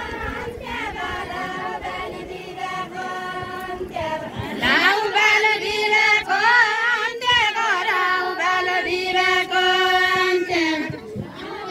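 Women singing a Deuda folk song with no instruments. About four and a half seconds in, one voice comes in louder and clearer and carries the line until near the end.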